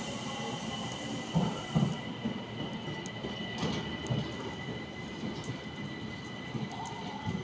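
Train moving on the rails, with a steady high-pitched whine and irregular low knocks, the loudest two about one and a half seconds in.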